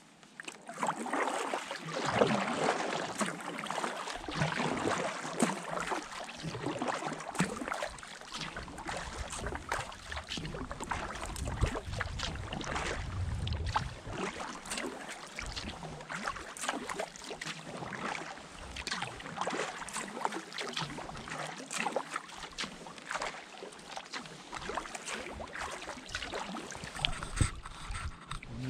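Kayak paddle strokes through calm water: blades dipping and pulling with repeated small splashes and drips.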